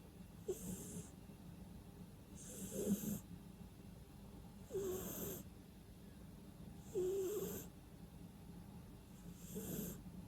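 A sleeping cat snoring: five slow breaths about two seconds apart, each with a hiss and a squeaky, whistling nasal snore.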